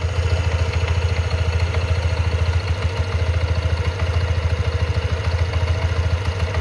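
Honda Vario 160 scooter's single-cylinder engine idling steadily during a morning warm-up, running rough rather than smooth. The owner hears a 'klotok-klotok' clatter from the CVT and is unsure whether it is normal.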